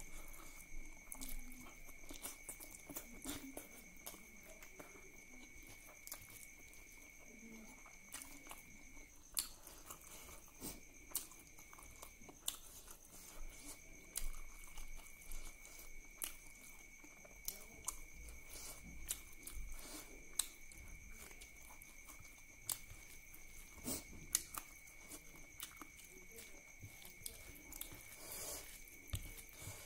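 Close-up eating sounds: a hand squishing and mixing wet duck curry and rice on a plate, with open-mouthed chewing and lip smacks as many short sharp clicks. A steady high whine runs behind, dropping out for a few seconds about nine seconds in.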